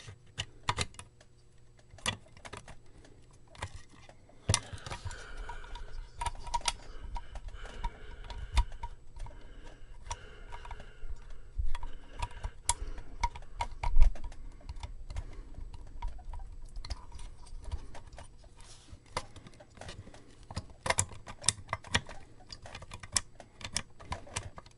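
Irregular clicks, taps and small knocks of a circuit board with its potentiometers and power switch being forced into a small guitar amplifier's case, with a louder bump about fourteen seconds in.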